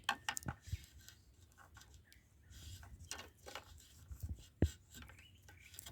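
Insulated wire being pulled through a homemade wire stripper, its clamped blade slitting the insulation: faint scraping and rustling with scattered small clicks, one sharper click about four and a half seconds in.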